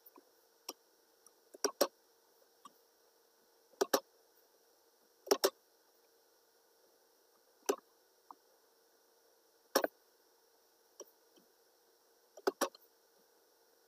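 Computer mouse button clicking: single clicks and quick double clicks every second or two, over a faint steady hum.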